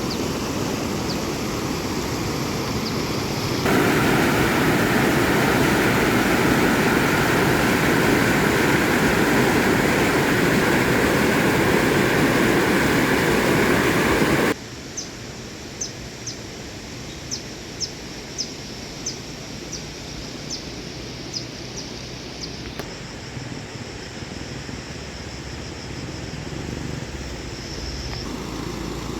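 Fast-flowing, rain-swollen stream water rushing steadily. It jumps louder about four seconds in, then drops suddenly to a softer rush about halfway through, where a run of short high chirps comes in over it.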